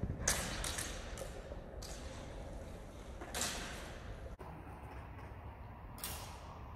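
Four short swishing, scuffing noises from a rapier-and-dagger sparring bout: the fencers' feet and blades moving over a dirt floor.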